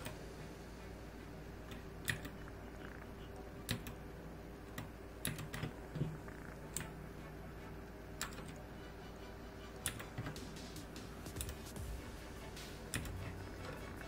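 Separate key clicks from an RK61 keyboard's clicky blue switches: about ten single presses, a second or two apart, as FN plus a key cycles through the backlight effects.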